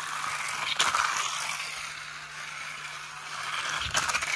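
Battery-powered light-up toy car running along a flexible plastic track: a steady high whir and rattle from its small motor and wheels, with a click about a second in and a quick clatter of clicks near the end as it runs up over a bump in the track.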